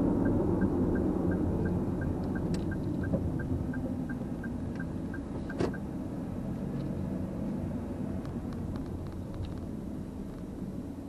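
Car cabin sound: engine and road rumble, with the turn-signal indicator ticking about three times a second until a click about five and a half seconds in, where the ticking stops. The rumble fades as the car slows.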